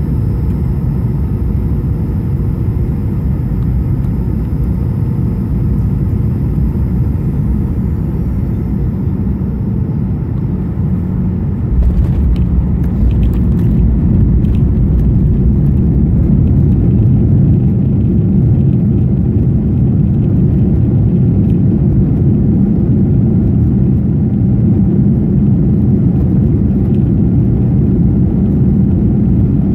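Boeing 737-800 cabin noise on final approach: a steady rumble from its CFM56-7B engines, with a high whine that slides down and fades away about eight seconds in. About twelve seconds in the wheels touch down with a few thumps, and the rumble turns louder as the jet rolls out along the runway.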